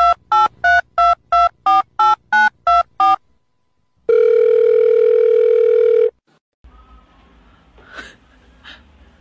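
Telephone keypad dialing tones, ten quick two-note beeps at about three a second, then after a short pause a steady tone held for about two seconds. These are a dubbed-in phone sound effect, timed as though the cat's toe pads were being pressed like buttons. Faint soft ticks follow near the end.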